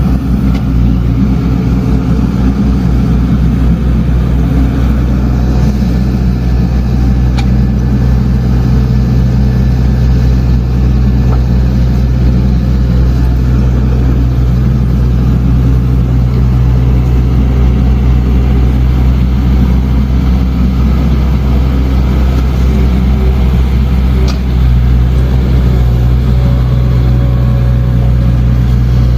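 Diesel engine of an earthmoving machine running steadily under work, with a low, even rumble and a couple of faint clanks.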